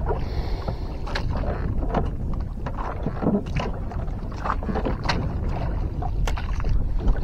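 Small wooden boat afloat on the sea: a steady low rumble of wind on the microphone, with irregular small slaps and knocks of water and handling against the hull, several a second.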